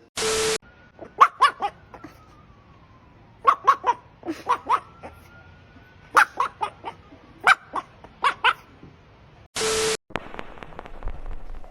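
A dog barking and yipping in several quick runs of short, sharp barks. Two brief, loud bursts of noise with a steady tone come just after the start and again near the end.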